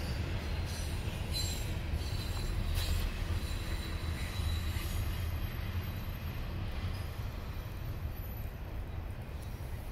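Double-stack intermodal freight train rolling past: a steady low rumble of the well cars on the rails, with a faint, thin wheel squeal in the first half. The sound eases off slightly toward the end as the train moves away.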